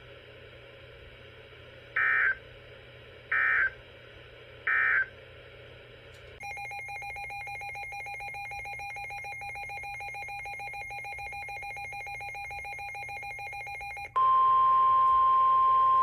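Emergency Alert System broadcast tones: three short bursts of SAME digital data warble, then a rapidly pulsing electronic alarm tone for about eight seconds. Next comes the loud, steady single-pitch NOAA Weather Radio warning alarm tone, the signal that a tornado warning message follows.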